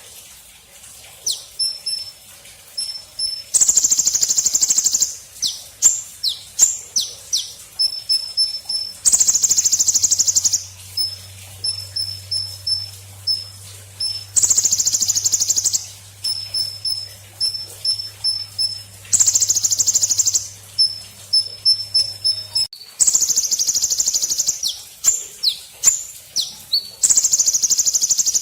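Golden grasshopper (belalang emas) call: long high buzzing trills of about a second and a half, repeating every five seconds or so, with quick sharp falling chirps and rows of short high peeps between them.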